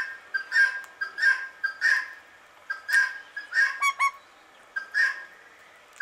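Male Indian ringneck parakeet giving short, sharp whistled calls over and over, roughly one or two a second, with two brief pauses.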